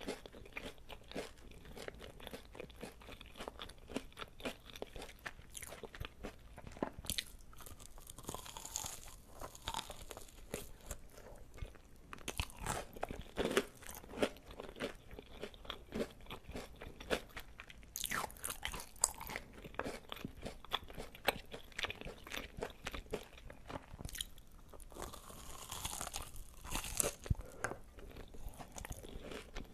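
A person chewing and crunching food close to the microphone: a steady stream of quick mouth clicks, with louder crunchy spells of chewing every few seconds.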